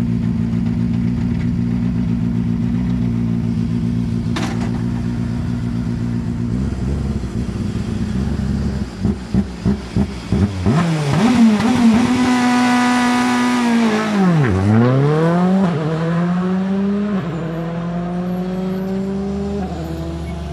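Rally car's engine idling at the start line, then revved in a few quick blips and held at high revs. About two-thirds of the way in the revs dip as the car launches, then climb again through two upshifts as it accelerates away and fades. A sharp click sounds about four seconds in.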